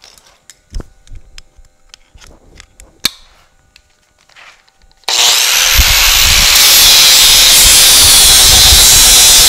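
Electric power tool switched on about five seconds in and running loud and steady against metal bracket stock. Before it starts there are only a few light handling clicks and taps.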